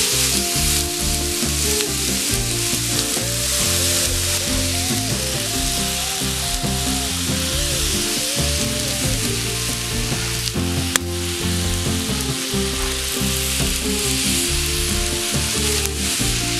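Chopped onion, carrot and zucchini sizzling steadily as they fry in a frying pan over a campfire, stirred now and then. Background music runs underneath.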